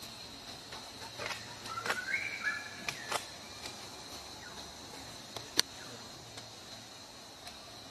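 Forest ambience of insects calling steadily at a high pitch, with a brief high chirping call in short level steps between about one and three seconds in, and a few sharp clicks, the loudest a little after five and a half seconds.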